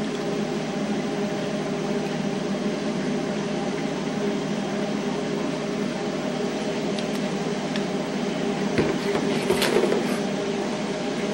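Steady fan or motor hum, with a few light knocks and clatter about nine to ten seconds in.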